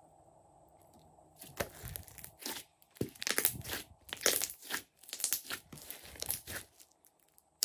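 Hands squishing and folding a large mass of glossy slime. A run of irregular sticky crackling squelches starts about a second and a half in and stops shortly before the end.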